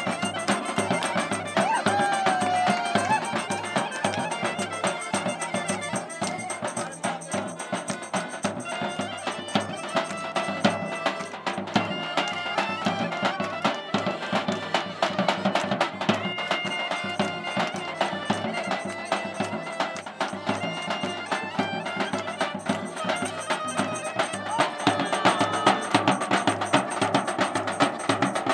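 Bulgarian folk dance music played live by a small street band: clarinet and accordion carry the melody over a large double-headed drum beaten in a quick, steady dance rhythm.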